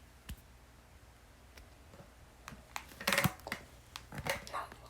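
Scattered sharp clicks and knocks, with a louder rustling burst about three seconds in.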